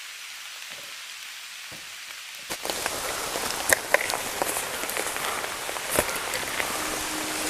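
Steady rain falling, an even hiss with a few sharp drip taps. It gets noticeably louder about two and a half seconds in.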